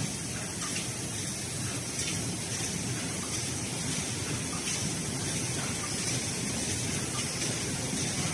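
Steady noise of a book-stacking machine and plastic modular-belt conveyors running on a factory floor, an even hiss-like din with a few faint clicks.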